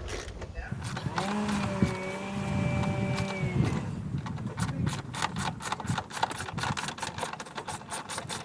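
Ratchet wrench clicking rapidly on the 10mm door-catch bolts of a car door, played back sped up. Before the clicking, a steady pitched tone with overtones runs for about two and a half seconds.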